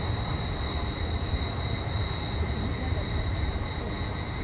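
Steam locomotive C57 1 standing under steam, with a steady high-pitched whine and a low, uneven rumble underneath.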